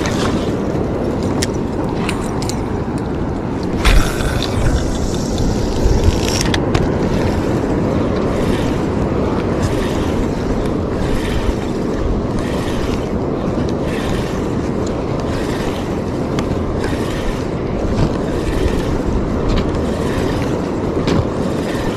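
Steady rumble of wind and sea on an open fishing boat, with a couple of sharp knocks about four and six seconds in.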